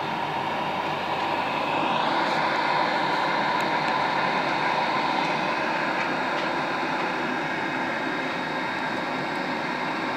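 Gas heating boiler running with a steady mechanical rush. About two seconds in it grows louder and brighter and then holds steady.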